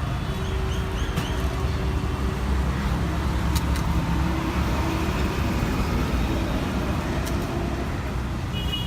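Street traffic running: a steady low rumble of vehicle engines, with a horn giving a short toot near the end.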